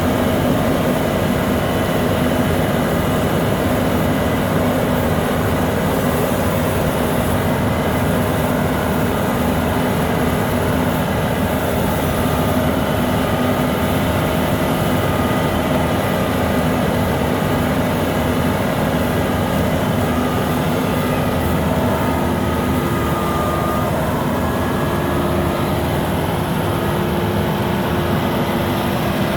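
Rice combine harvester running steadily, its engine and machinery holding an even, unbroken sound with several constant tones.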